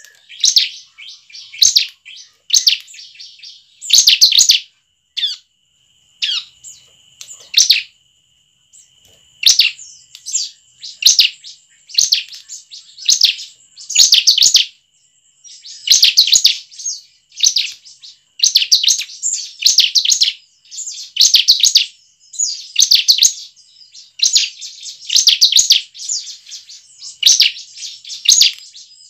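Bar-winged prinia (ciblek) singing: rapid, high, chattering phrases of chirps repeated about once a second, with a brief pause near the middle. A thin steady high tone runs underneath from about six seconds in.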